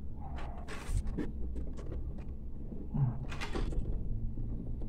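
Handling noise from a plastic action figure being turned in the hands and freed from its wire ties: a short rustle in the first second, then scattered small clicks and taps.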